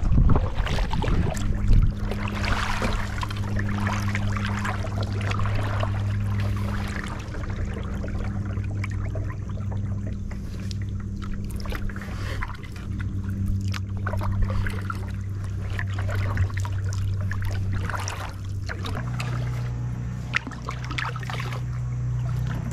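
Steady low drone of a small petrol lawnmower engine, which steps up slightly in pitch near the end. Over it, kayak paddle strokes splash and drip, loudest at the start.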